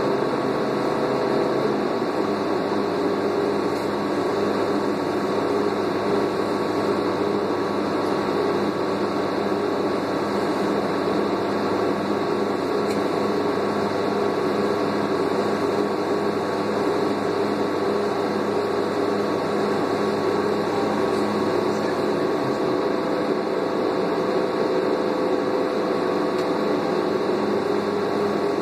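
Doosan CNG engine and drivetrain of a 2001 New Flyer C40LF transit bus, heard from inside the passenger cabin while riding: a steady drone with several steady tones, whose pattern changes about two seconds in.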